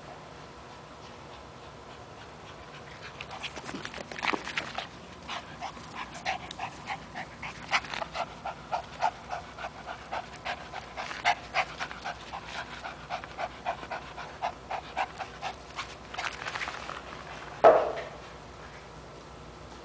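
Small chihuahua-terrier dog panting hard close by, quick short breaths about three a second, starting a few seconds in; out of breath from rope play. One sudden loud short sound near the end.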